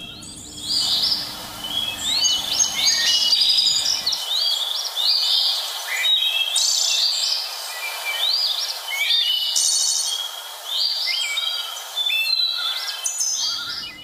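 Forest birds singing: many short, high whistled notes that rise and fall, repeated in quick phrases over and over, over a faint steady forest hiss.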